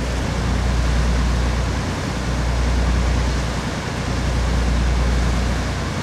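Motor yacht's engine running steadily while under way, a low drone with water and hull noise over it, swelling and easing every couple of seconds.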